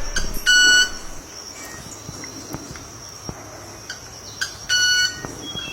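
A bird giving two short, flat, beep-like calls about four seconds apart, each like an electronic beep, over a faint steady high hiss.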